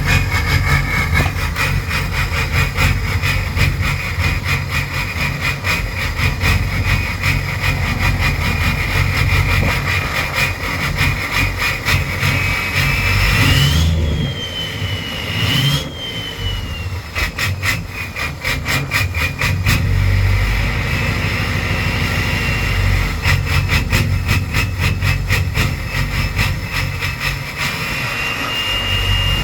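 Ford 6.0L Power Stroke V8 turbodiesel running with a rough idle, its firing pulses steady beneath a high whine. Near the middle the whine climbs and falls back twice.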